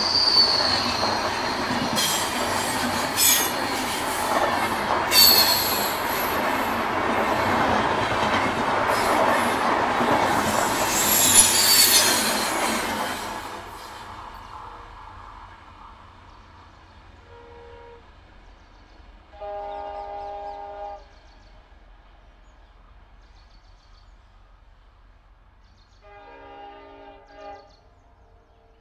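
Passenger coaches of an express train rolling past at speed, with high wheel-and-rail squeals over the rumble, which drops away about 13 seconds in as the last coach clears. After that a locomotive horn sounds faintly in the distance, several blasts, the longest lasting about a second and a half.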